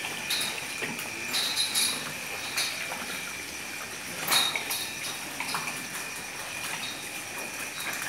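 Cattle shed ambience: a steady hiss with a faint high whine, broken by a few short clinks and rustles as tethered cows shift on their chains at the steel feed rail. The sharpest clink comes about four seconds in.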